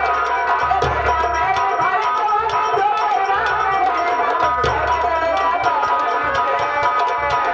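Nautanki folk music: rapid, steady drumming on a nagara kettle drum and a hand drum under a wavering melody.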